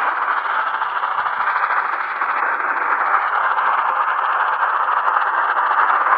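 Tecsun PL-330 portable receiver on medium wave putting out steady static hiss from its speaker, with faint, slowly wavering whistles. No station programme comes through.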